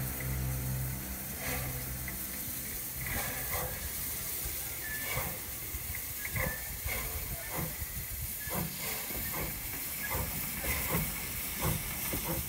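Steam locomotive approaching with a steady hiss and a regular chuff about twice a second, the beats coming slightly closer together toward the end. A vehicle engine hum fades out in the first second or so.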